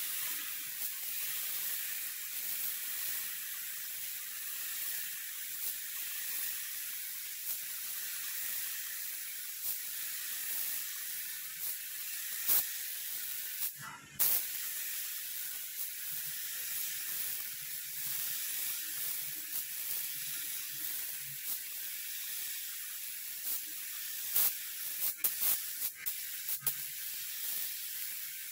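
Gravity-feed paint spray gun hissing steadily as compressed air atomises paint onto a car's side panel. The hiss breaks off briefly about halfway through, and a few sharp clicks sound near the end.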